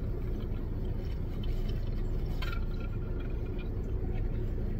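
Steady low hum inside a car cabin, with a few faint small clicks and rustles about halfway through.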